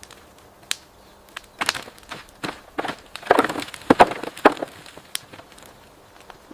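Irregular knocks and cracking of wood, about a dozen sharp strikes, loudest and most crowded in the middle.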